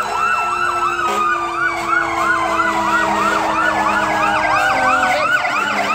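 Emergency vehicle sirens: an electronic siren yelping at about three to four sweeps a second, over a steady siren tone that slowly falls in pitch.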